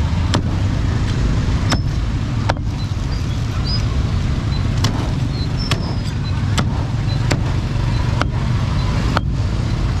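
Cleaver chopping roast pork on a chopping board: sharp knocks at uneven spacing, roughly one a second. Under them is a steady low rumble of street traffic.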